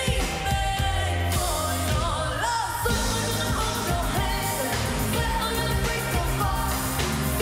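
Live pop music: a female lead vocal singing a wavering melody over a band with a steady heavy bass and beat.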